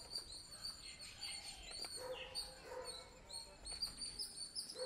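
Small birds chirping: a quick series of short high chirps, about three a second, with fainter calls beneath.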